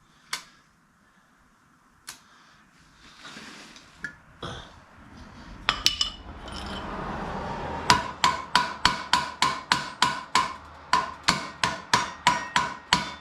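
A hammer striking metal: a few scattered knocks, then a quick run of about four ringing blows a second through the last five seconds.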